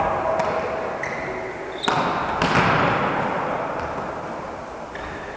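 Volleyball being struck and bouncing in a reverberant sports hall: a few sharp slaps, the loudest about two and a half seconds in, each with a ringing echo.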